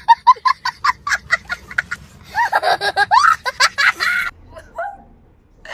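A woman laughing: a run of quick, high-pitched ha-ha pulses for about two seconds, then a louder, breathier burst of laughter that stops about four seconds in.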